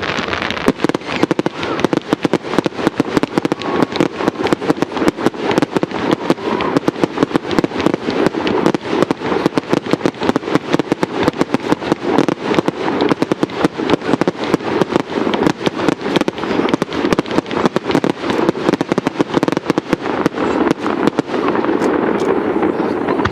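Fireworks display firing a dense, rapid barrage of shell bursts and crackling reports, many a second with no gaps. Near the end the reports stop and a steadier rushing noise remains.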